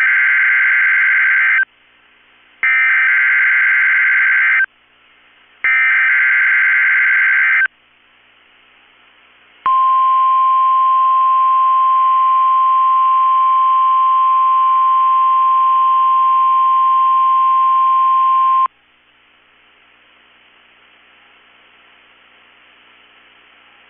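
NOAA Weather Radio alert from KEC65 for a test tornado warning: three screechy digital SAME header bursts, each about two seconds long, a second apart. After a short pause comes the single steady 1050 Hz Weather Radio warning tone for about nine seconds, which cuts off suddenly into faint static hiss.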